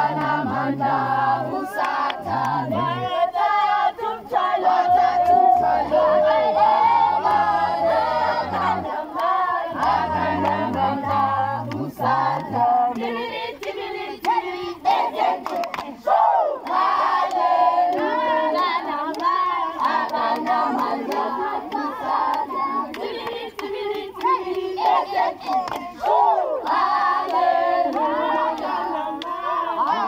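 A group of young people singing together in chorus, with hands clapping along.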